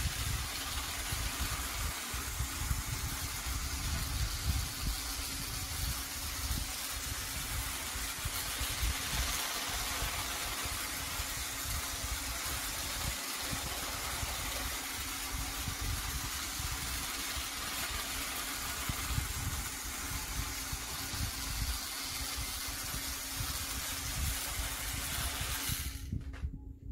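Battery-powered Trackmaster Bertram toy engine running on plastic track: a steady motor whir and hum over a rumble of wheels on the track, cutting off abruptly near the end.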